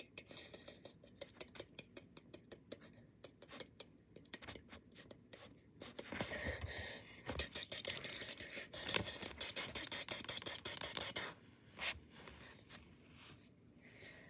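Hand handling noise: scattered light clicks, then about five seconds of louder scratchy rustling and rubbing from about six seconds in, as hands move small plastic Lego minifigures about on a shag carpet.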